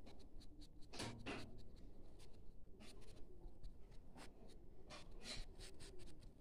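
Faint scratching of an ink pen on notebook paper: short, irregular hatching strokes, the strongest about a second in.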